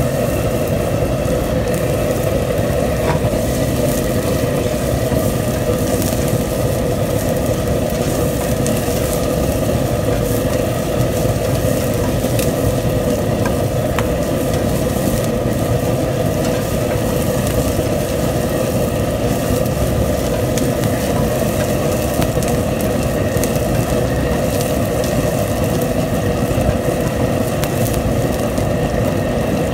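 Chopped onion sizzling in oil in a nonstick frying pan as a spatula stirs it, with a few light clicks of the spatula on the pan, over a loud, steady roar of kitchen equipment.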